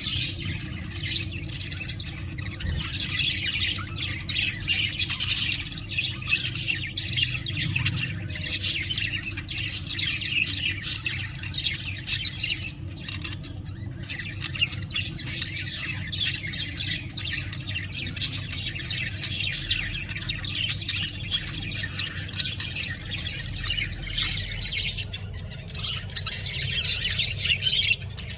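Spangle budgerigars chattering and squawking, a continuous dense stream of chirps and warbles, over a steady low hum.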